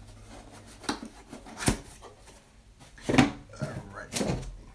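Small cardboard box being handled and opened on a table: a few sharp knocks and scrapes, the loudest about a second and a half in and again about three seconds in.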